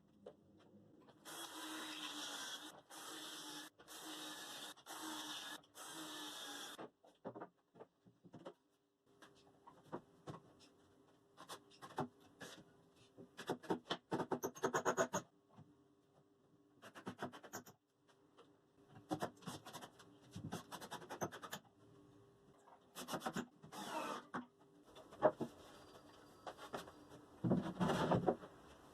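Hand work on wood: a run of even rubbing strokes about two a second for the first several seconds, then scattered clicks, scrapes and light knocks.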